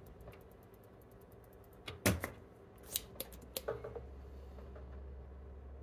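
Desoldering work on a circuit board: light rapid tool clicks and taps, a loud sharp snap about two seconds in, a few more clicks, then a low steady hum starting around four seconds in.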